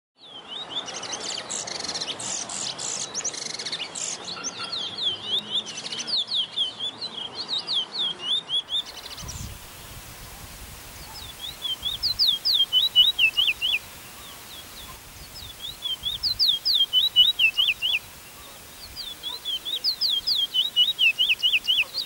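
Caged Trinidad bullfinch (chestnut-bellied seed finch) singing rapid series of falling whistled notes. The song runs on for the first several seconds, then comes in phrases of about two seconds separated by short pauses.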